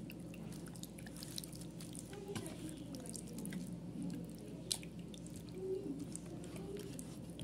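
Wet squelching and sticky clicks of hands kneading chicken pieces in a thick spice marinade in a stainless steel bowl, with one sharper click a little under five seconds in.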